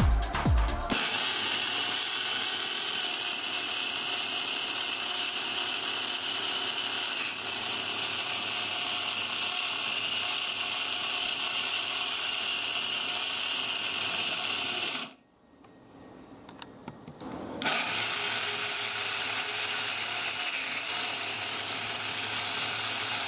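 Homemade mini fan's two small DC motors driving plastic gears and a propeller, running with a steady high-pitched mechanical whir. It is switched off about fifteen seconds in and starts again about two and a half seconds later.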